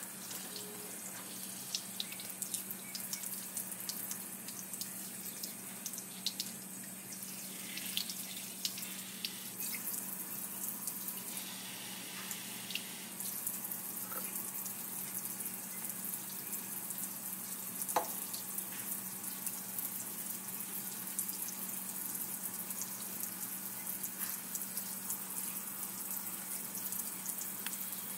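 Water running steadily from a gooseneck faucet into a sink, splashing over a newborn's head as his hair is rinsed and washed, with a steady low hum underneath.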